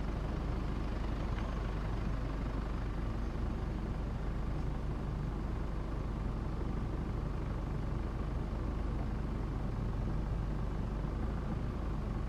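1992 Geo Tracker driving off-road: steady engine and drivetrain rumble with tyre noise, holding an even level with no sudden events.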